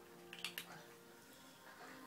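Faint television sound in a small room: low steady tones with a couple of soft clicks about half a second in.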